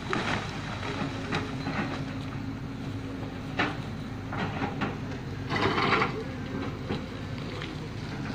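Lonking hydraulic excavator's diesel engine running steadily as it digs at a rock face, with irregular clanks and scrapes of the bucket on rock, the loudest about six seconds in.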